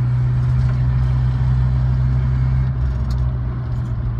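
1973 Toyota Hilux's 2.0-litre 18R four-cylinder engine pulling steadily in fourth gear at about 30 mph, heard from inside the cab as a steady low drone; it eases off slightly a little under three seconds in.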